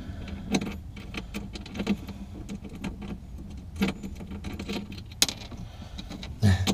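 Light metal clicks and clinks, irregular and scattered, of a washer, lock washer and wing nut being worked by hand onto a battery terminal stud, with a louder knock near the end.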